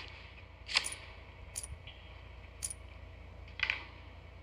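Online casino game app's chip sound effects: four short, sharp chip clicks about a second apart as chips are selected and a bet is placed on the table.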